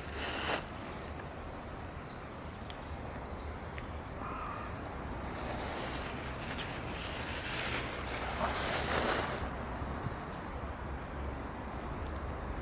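Outdoor ambience: a steady background hiss with a few short, high chirps in the first few seconds, and a rushing noise that swells from about five seconds in and fades about four seconds later.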